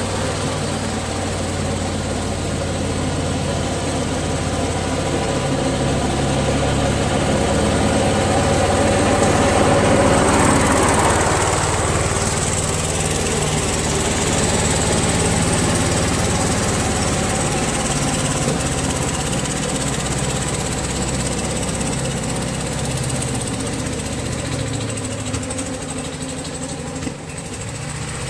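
Riding lawn mower's engine running steadily as it drives past, loudest about ten seconds in, with a drop in pitch as it goes by, then fading as it moves away.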